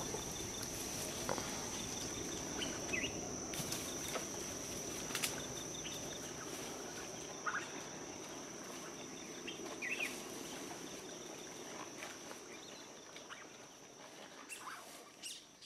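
Faint outdoor ambience: a steady high-pitched insect drone, with a few short bird chirps now and then.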